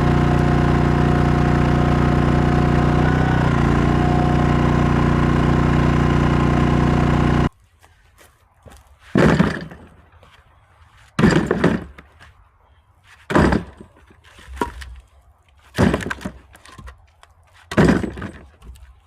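A small engine runs steadily for about seven seconds, then cuts off suddenly. Then comes a series of sharp splitting strikes into firewood, one about every two seconds, each with a crack of breaking wood.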